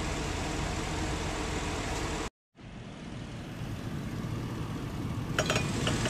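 Chevrolet Tahoe V8 engine idling under the open hood with the air conditioning on high while the last can of R134a refrigerant feeds in through the low-pressure port. The sound cuts out for a moment about two seconds in, then comes back quieter, with a few light clicks near the end.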